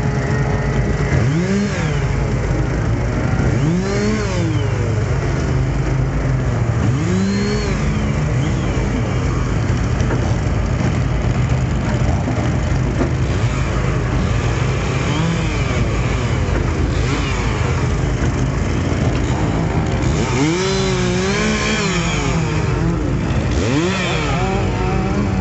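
Small gasoline engines running steadily, with an engine revved up and back down a handful of times, every few seconds early on and twice more near the end.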